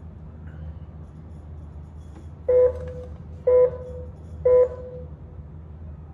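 Race-start countdown beeps from an electronic timing system: three short, identical beeps about a second apart, beginning about two and a half seconds in, over a low steady hum.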